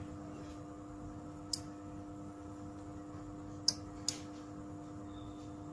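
Relays on an Eachen ST DC2 Wi-Fi smart switch module clicking three times, the last two close together, as its channels switch on and off, over a steady low hum.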